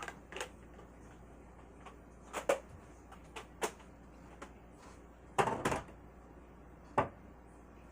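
Scattered clicks and knocks of things being handled and put away, with a quick cluster of knocks a little past the middle and a single sharp knock near the end.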